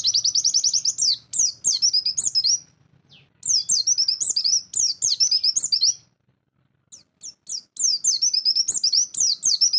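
White-eye (pleci) singing its fast 'nembak' song: rapid, high twittering notes sliding up and down in long phrases, with a short break about three seconds in and a longer one around six to seven seconds.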